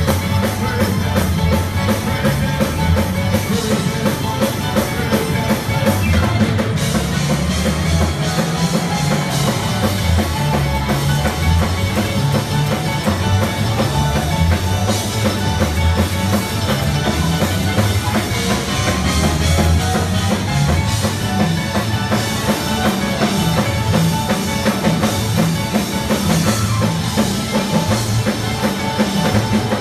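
Church band playing loud music, a drum kit keeping a steady beat over a moving bass line.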